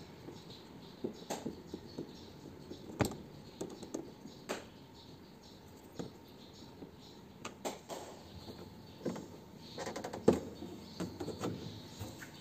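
Scattered light clicks and knocks with some rubbing, at irregular intervals and more frequent near the end: hands and tools handling washing-machine parts during disassembly.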